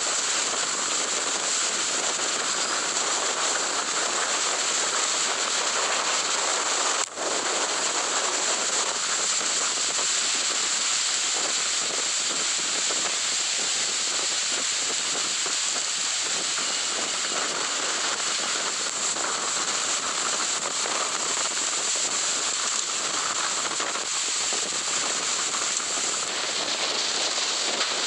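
Hurricane-force wind and driving rain, a loud steady rush of noise that breaks off for an instant about seven seconds in.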